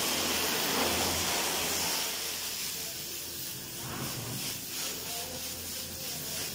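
Pressure washer spraying water onto a car, a steady hiss, louder for the first two seconds and then a little softer.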